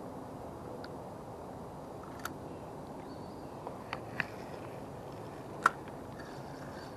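A few sharp clicks and taps from handling a spinning rod and reel: one at about two seconds, a quick cluster around four seconds, and the loudest just before six seconds. Under them runs a steady outdoor hiss.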